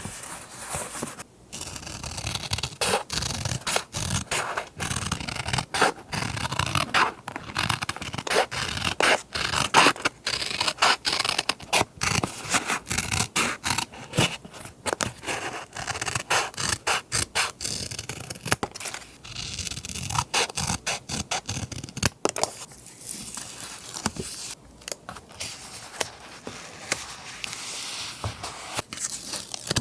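Close-up paper handling for scrapbook journaling: dry rustling, crinkling and scraping of paper, with many irregular small crackles and ticks.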